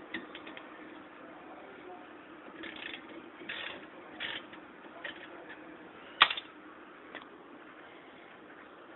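A 3/8-inch ratchet with a 12 mm socket clicks in short runs as a rear brake caliper bolt is backed out. One sharp metallic clank about six seconds in is the loudest sound.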